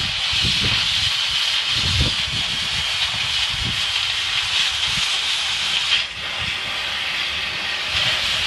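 Cutting torch burning through a steel anchor chain: a loud, steady hiss from the cutting jet with irregular low pops. The hiss drops briefly about six seconds in, then resumes.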